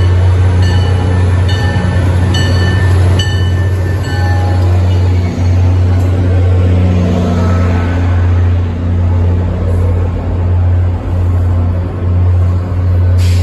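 MBTA commuter rail diesel locomotive passing close with a steady low engine drone, its bell ringing evenly at a little over once a second and stopping about four seconds in. The rumble of the locomotive and its passenger coaches follows, with a sharp clank near the end.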